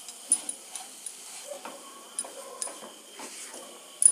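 A spatula stirring and scraping a thick besan, ghee, milk and sugar mixture cooking in a nonstick kadhai: irregular light scrapes and taps against the pan, with a faint sizzle underneath.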